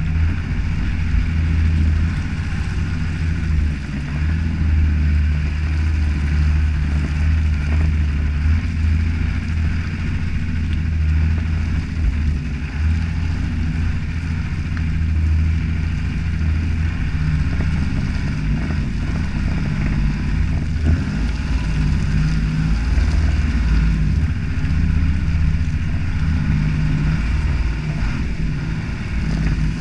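Toyota Land Cruiser HJ61's 12H-T turbo-diesel straight-six pulling the vehicle along a muddy track, a steady low drone that rises and falls a little with the throttle, heard close by from a camera mounted low on the body near the front wheel, with tyre and wind noise over it.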